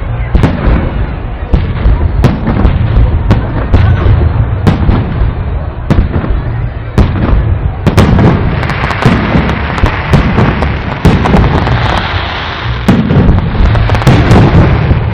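Fireworks salute: a rapid run of sharp bangs from shells bursting overhead, thickening after about eight seconds into a dense crackle under the repeated bangs.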